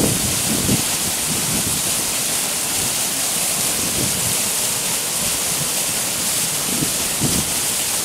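A tall mountain waterfall, about 80 m high, pouring onto rock: a steady hiss of falling water with uneven low rumbling underneath.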